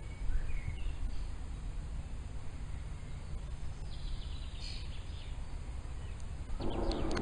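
Wind rumbling on the microphone outdoors, with a few faint bird chirps in the first second and again midway. Near the end a louder rushing noise comes in.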